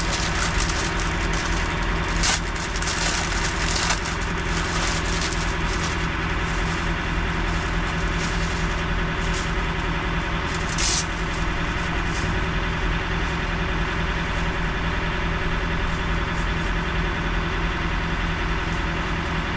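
Steady hum of an idling diesel truck engine, broken by a few brief hisses.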